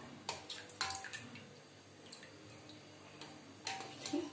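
A spoon clicking against a stainless steel pot while stirring mashed pumpkin into curd. A couple of light knocks with a short metallic ring come about a third of a second and a second in, then soft wet stirring, then two more knocks near the end.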